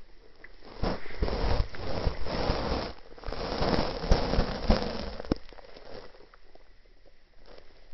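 Close crackling rustle of a cat licking and grooming its fur, in two long stretches of about two seconds each with sharp clicks through them, fading to scattered faint clicks.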